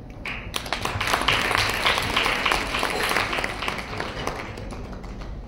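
Audience applauding, starting about half a second in and fading away near the end.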